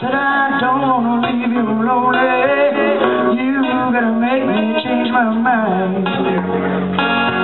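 A singer sings into a microphone over guitar accompaniment.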